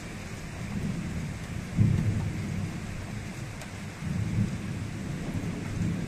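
Thunder rolling over steady rain hiss during a summer night thunderstorm, with a sudden louder peal about two seconds in and another swell of rumbling about four seconds in.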